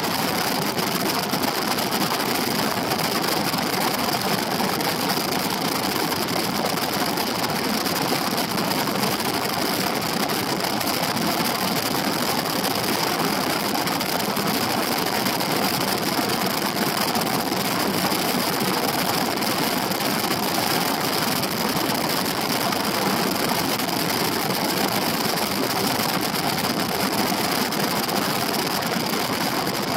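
Benelli TRK 702 X motorcycle's parallel-twin engine running at a steady cruise of about 90 to 100 km/h, under a steady rush of wind on the camera.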